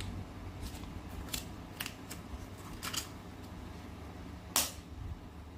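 Clear plastic film crinkling as it is peeled off a white plastic earbud charging case, with a few small clicks as the case's lid is opened and handled. The sharpest click comes near the end.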